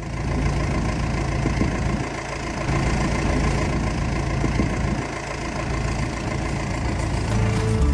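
A telehandler's diesel engine running steadily while its boom and forks lift and swing a long wooden log.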